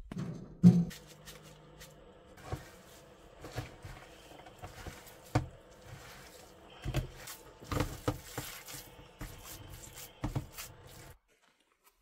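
Hands mixing a moist filling in a plastic bowl: irregular soft squelches, clicks and knocks over a steady low hum. The sound cuts off abruptly about eleven seconds in.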